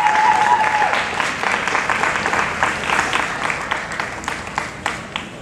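Audience applauding in a dense patter of clapping that thins out and fades near the end, with a held high note over it in the first second.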